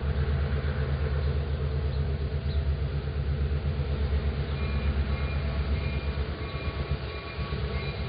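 Diesel freight locomotive rumbling out of sight, a steady low engine sound. About halfway through, faint high whining tones start to come and go over it.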